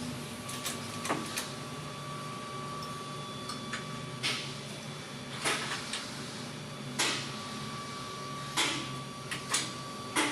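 Scattered clinks and short scraping knocks of tools on metal, a few seconds apart, over a steady background hum.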